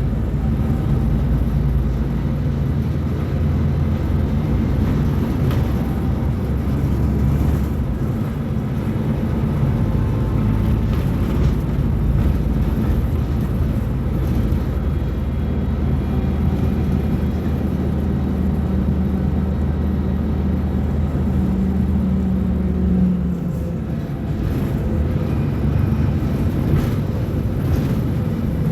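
Mercedes-Benz O500U bus diesel engine running steadily, its engine speed shifting up and down. It rises about three quarters of the way through, eases off briefly, then builds again near the end.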